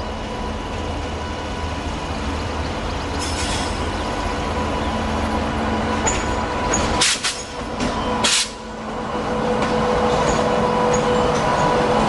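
WAG-9 electric locomotive hauling a freight rake slowly up to and alongside, its running noise growing as it nears. There are two short bursts of hiss about seven and eight seconds in. A steady hum with a whine strengthens near the end as the locomotive comes alongside.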